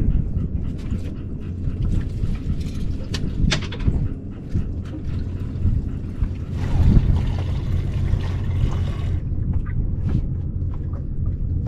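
Steady low rumble with scattered small clicks and knocks from outboard motor parts being handled, and a louder rushing stretch about two-thirds of the way through.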